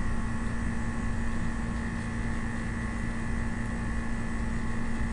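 Steady room background hum with a constant low tone and a fainter higher tone, unchanging throughout; no other events.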